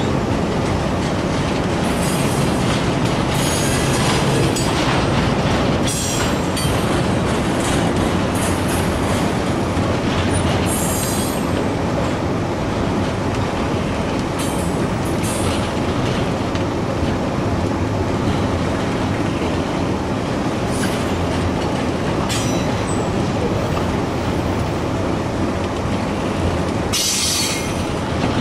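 Union Pacific freight train rolling past, a steady rumble of cars with the clickety-clack of wheels, and brief high wheel squeals several times, the loudest near the end.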